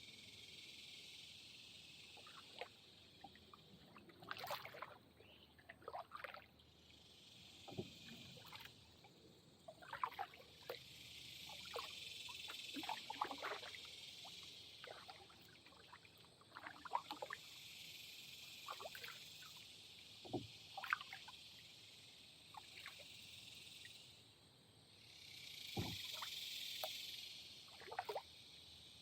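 Kayak paddling: water dripping and splashing off the paddle blade in scattered strokes, with a few dull knocks, over a steady high hiss that swells and fades twice.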